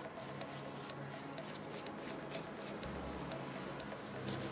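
Hand nail file rasping back and forth over a gel nail, in quick repeated strokes, as the gel structure is shaped and evened with the apex.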